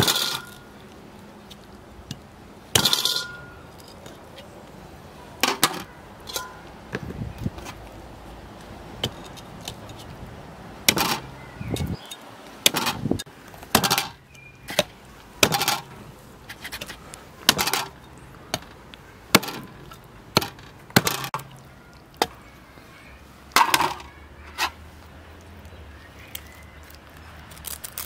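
A knife cutting through the head and gills of a large raw fish on a wooden cutting board, making about twenty sharp cracks and knocks at uneven intervals.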